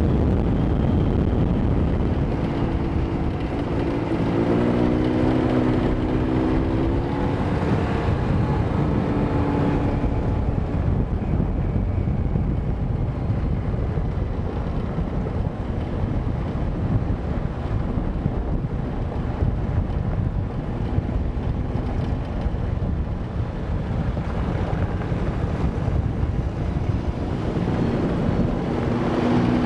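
Off-road vehicle engine running under way, with wind noise on the microphone. The engine note climbs a few seconds in and again near the end.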